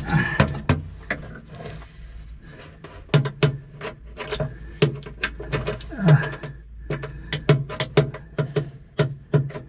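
Hand tools and fuel-line fittings being handled: irregular sharp clicks and light knocks with some rubbing.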